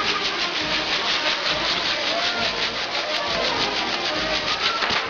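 Fireworks on a pyrotechnic basket spraying sparks: a loud, dense hiss that pulses rapidly, several times a second, with a few faint wavering tones beneath.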